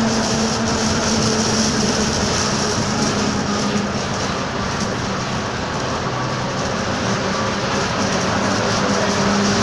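Mercedes-Benz OF-1722M city bus under way: a steady drive noise with a steady tone running through it, the growling differential.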